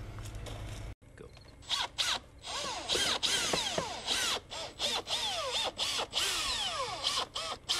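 Cordless drill with a long, thin bit boring a pilot hole through vinyl siding into the house wall, run in short trigger bursts so its motor whine rises and falls again and again.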